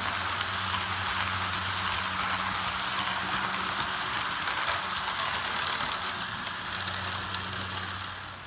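HO scale model train running on the layout: the locomotive's electric motor hums steadily while the wheels rattle and click over the rail joints. The sound fades somewhat near the end.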